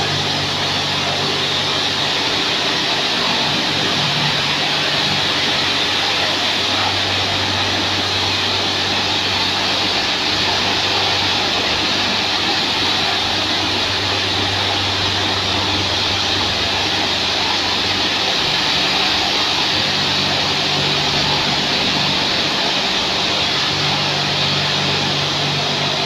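Sino Star touchless car wash rinsing a car: high-pressure water jets from the moving overhead arm hiss steadily against the bodywork over a low pump-motor hum. The hum drops in pitch several seconds in and rises again later.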